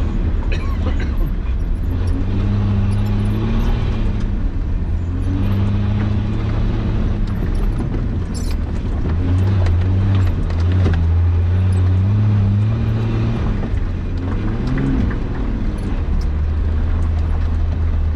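Nissan Patrol Y60 engine running under load over rough ground, its pitch rising and falling as the throttle is worked, with a few sharp clicks and knocks.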